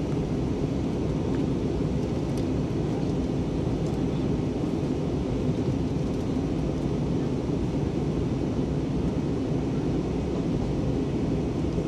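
Steady low rumble of an Airbus A320-232 in flight, its IAE V2500 engines and the airflow over the fuselage heard from inside the passenger cabin.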